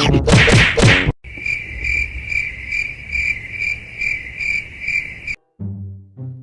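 Cricket chirping in an even rhythm, about three chirps a second at one steady pitch. A loud burst of sound comes before it in the first second, and a short low pitched sound comes near the end.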